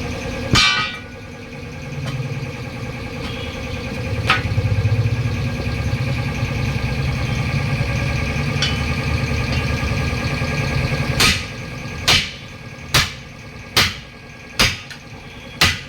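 Metal impacts as a steel lock ring is fitted onto the rim of a 7.50-16 tyre wheel. A steady engine-like hum runs through the middle with a single knock, then in the last few seconds come about six sharp ringing strikes, one every second or less.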